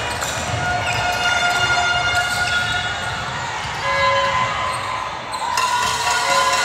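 Basketball game on a hardwood gym court: the ball bouncing, sneakers squeaking in held and gliding squeals, and players' and spectators' voices echoing in the hall.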